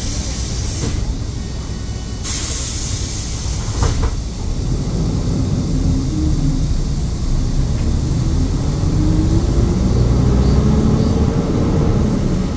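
Inside a city bus: two bursts of air hiss from the bus's pneumatics, with a knock near the end of the second, then the engine drone rising steadily in pitch as the bus pulls away and speeds up.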